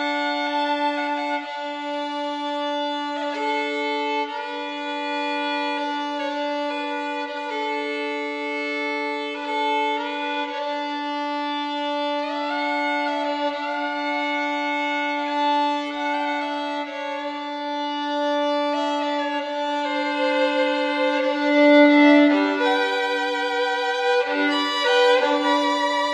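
Instrumental background music: a slow melody over one steady held low note, growing busier and louder near the end.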